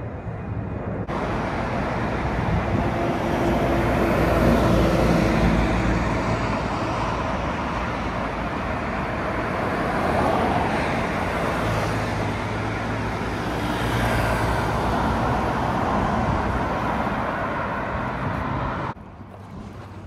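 Loud, steady road traffic noise, with a constant low engine hum. It drops off suddenly near the end.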